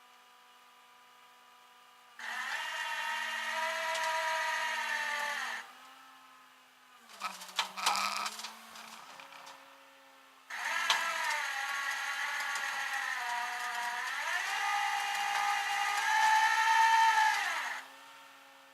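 A small electric power tool's motor whining in two long runs, the first about three seconds and the second about seven. Each run drops in pitch as it winds down. Between them, for about a second, come sharp clicks and clatter.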